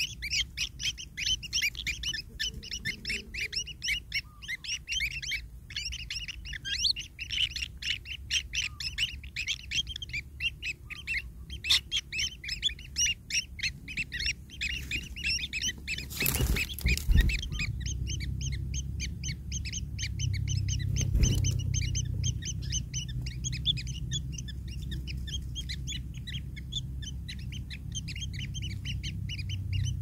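White-throated kingfisher nestlings giving rapid, repeated high begging chirps for food. About halfway through there is a brief loud noise burst. After it a low rumble runs under the chirps, which are fainter.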